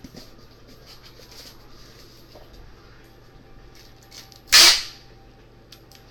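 Soft rustling and small clicks of cardboard box flaps being folded shut, then about four and a half seconds in a single short, loud rip of packing tape pulled off its roll to seal the box.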